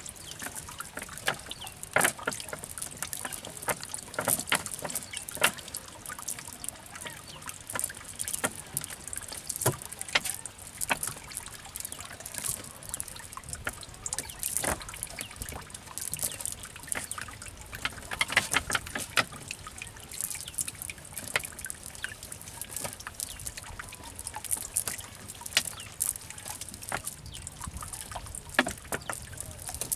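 Water splashing and trickling: many small, irregular splashes, some sharper than others, over a steady trickle.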